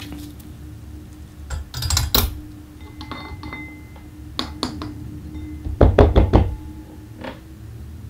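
A few knocks and clicks of hard objects being handled and set down, the loudest cluster about six seconds in, over a steady low hum.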